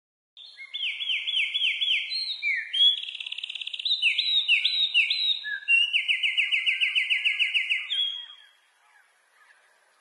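Eurasian wren singing a loud, fast song of rapid trills and repeated sweeping notes, ending about eight seconds in.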